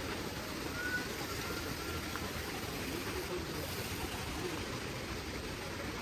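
Steady rushing noise of flowing water from the stream and falls near the trail.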